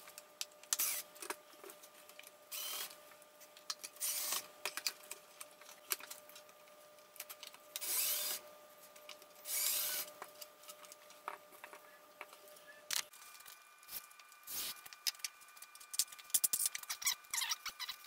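Cordless drill-driver backing out screws from a wooden chair bracket, running in about five short bursts. After that come many sharp clicks and squeaks from the wooden chair arm joint as it is twisted and worked loose against its glued dowel.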